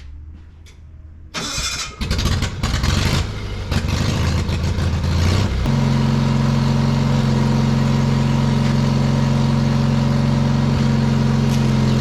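Onan engine of an old Miller generator welder starting: it turns over and runs unevenly for a few seconds, then settles into a steady, even run about five and a half seconds in.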